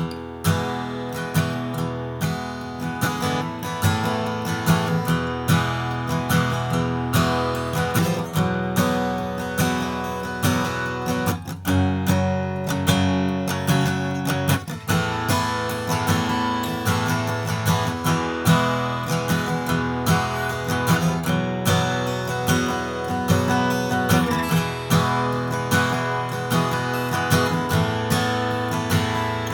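Martin Custom Shop Style 18 acoustic guitar with an all-flamed-mahogany body, played solo in a continuous passage of strummed chords and picked notes.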